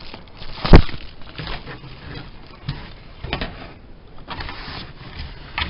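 Unpacked items and packaging being handled. There is one sharp knock a little under a second in, then softer knocks and rustling.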